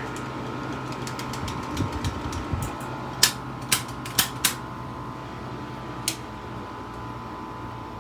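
Air conditioner running with a steady hum of fan and compressor. Over it come a few light ticks, then a handful of sharp clicks in the middle, the loudest about three seconds in.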